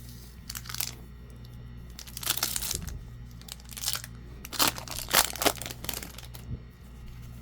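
Foil wrapper of a Pokémon card booster pack crinkling and tearing as the pack is opened, in several short bursts of rustling.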